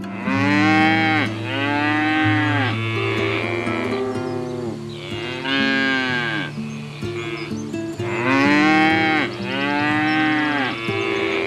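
A series of long mooing calls from a bovine, each rising and then falling in pitch, over soft steady background music.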